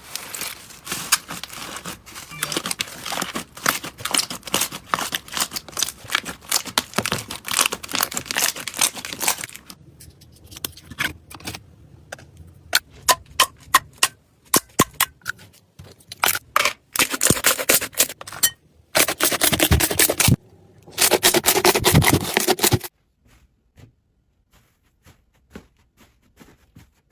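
Slime being squeezed and poked, crackling and popping: dense crackling at first, then scattered sharp pops, two short bursts of crackling near the end, then it goes faint.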